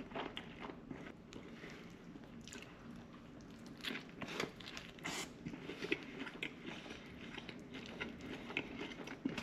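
Close-miked chewing of a chicken and lamb gyro: wet mouth sounds with scattered crackling ticks from the wrap, a few louder ones midway.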